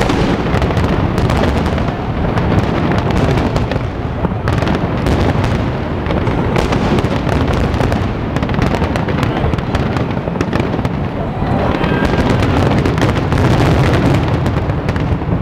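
Dense barrage of aerial firework shells bursting without a break: continuous booms with crackling over them.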